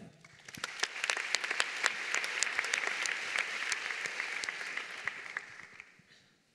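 Audience applauding in a hall, many hands clapping at once; it starts about half a second in, holds steady, then dies away near the end.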